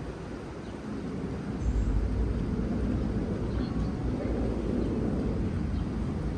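Steady low rumble of a car driving slowly, engine and road noise, growing louder a little under two seconds in.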